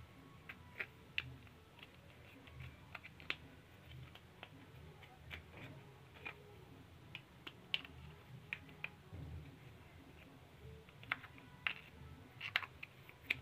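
Irregular light metallic clicks and taps as the small steel parts of a car tie rod end (ball stud, ring, pin) are handled and fitted by hand, a few sharper clicks standing out.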